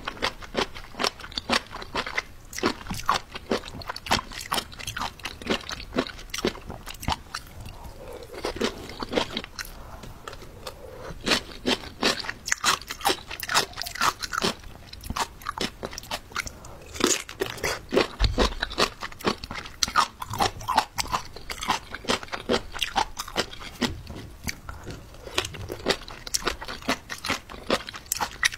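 Close-miked chewing of crunchy jellyfish: a dense, irregular run of crisp crunches and crackles, several a second.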